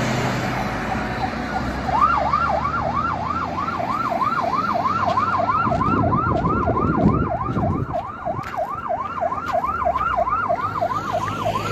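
Vehicle siren in a fast yelp, sweeping up and down in pitch about three to four times a second, starting about two seconds in, over the engine and road noise of passing vehicles.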